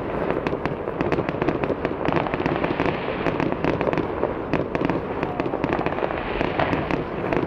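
Fireworks display: a dense, unbroken barrage of bangs and crackling pops from aerial shells bursting, at a steady level.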